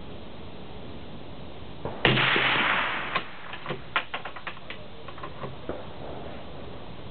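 Howa .243 bolt-action hunting rifle fired once through a sound moderator about two seconds in, the report dying away over about a second. A quick series of sharp metallic clicks follows as the bolt is worked to eject the spent case and chamber the next round.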